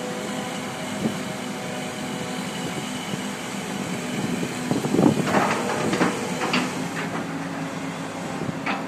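Komatsu PC138US-8 hydraulic excavator running, its diesel engine holding a steady pitch while the machine slews and moves. From about halfway a run of metallic clanks and squeaks, the loudest part, and a short high squeal near the end.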